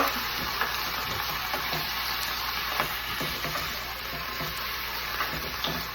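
Chicken pieces frying in a pan with garlic and red onions, a steady sizzle with a few light clicks of a utensil stirring.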